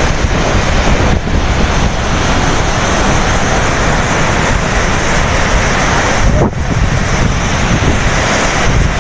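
Floodwater rushing out of a dam's open spillway gates and churning down the river below, a loud steady rush with wind buffeting the microphone.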